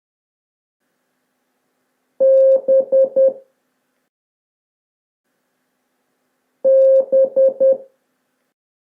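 Morse code tone, mid-pitched, sounding the letter B (dash dot dot dot): one long beep then three short beeps, played twice, about two seconds in and again some four and a half seconds later.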